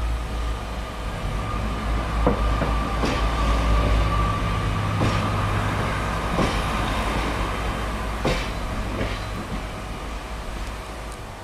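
Diesel multiple unit running slowly past, its diesel engine rumbling steadily and dying away near the end. Its wheels click in pairs over the rail joints, about six clicks in all.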